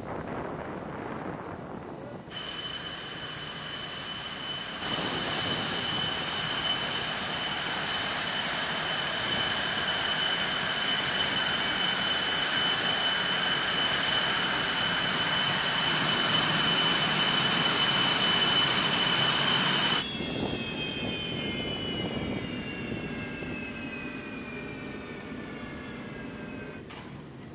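F/A-18 Hornet jet engines running on the ground with a steady high whine, which grows louder about two seconds in and again about five seconds in. About twenty seconds in the sound changes abruptly, and the whine tones slowly fall in pitch.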